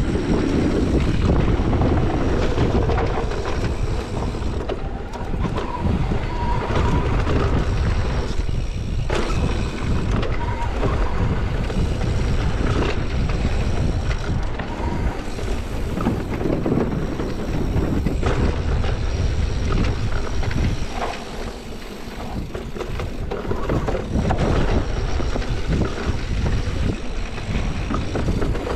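Wind buffeting the GoPro's microphone over the steady rumble and rattle of a mountain bike rolling fast down a dirt trail.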